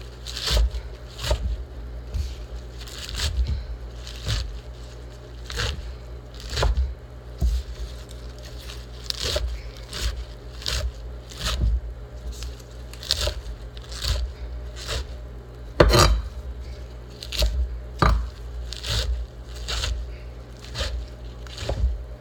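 Ground-turkey meatloaf mixture being mixed in a bowl, in repeated short strokes about once a second.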